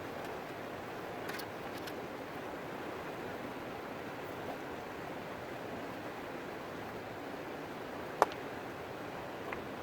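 Steady rush of flowing river water. A single sharp knock about eight seconds in, with a few faint ticks elsewhere.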